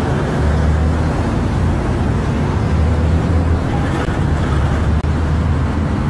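Steady highway traffic noise with a heavy low rumble, picked up on a phone microphone at the roadside.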